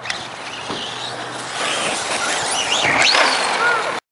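Radio-controlled trucks' motors whining as they run up to a jump ramp, with rising pitch sweeps as they accelerate about three seconds in; people talking alongside.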